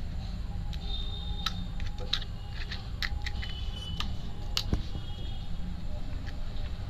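Sharp clicks and light taps, about half a dozen spread irregularly, as crisp pani puri shells are handled and filled with a steel spoon, over a steady low rumble.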